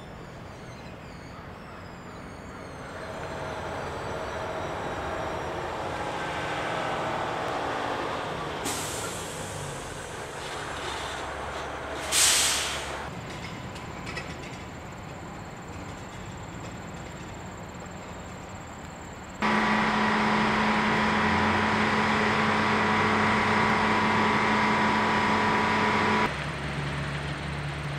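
Diesel yard tractors working an intermodal rail yard: an engine swells and eases off, then air brakes let out a short sharp hiss. Later a louder steady engine drone with a held hum starts and stops abruptly.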